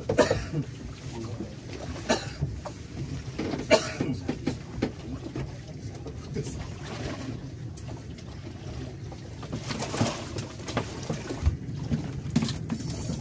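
Steady low hum of the fishing boat's motor, with scattered knocks and clatter on deck as the caught fish and the tackle are handled.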